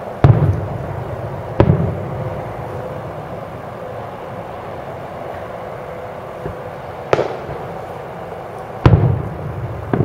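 Aerial fireworks shells bursting: two sharp booms close together near the start, then after a pause two more, the loudest with a low rolling rumble after it, and another just at the end.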